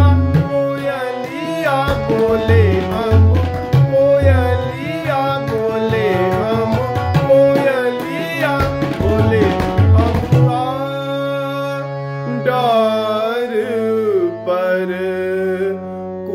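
Harmonium playing a melody in Raag Malkauns, with tabla strokes keeping time that stop about ten seconds in, leaving the harmonium alone with a low held note.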